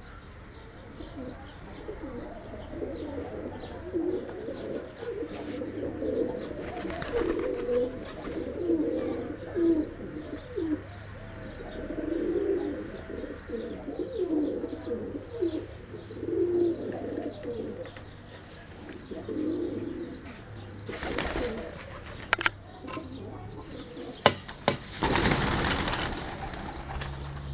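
Pigeons cooing, many low rounded coos repeating and overlapping, with a few short noisy rustling bursts, the longest near the end.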